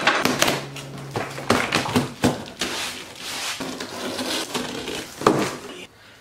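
Cardboard boxes being handled and opened on a concrete floor: scattered knocks and thumps, scraping and rustling of cardboard, and strapping being cut.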